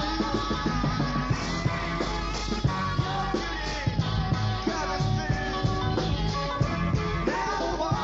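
1974 US psychedelic rock recording playing: a full band with a steady beat and sliding pitched lines over it.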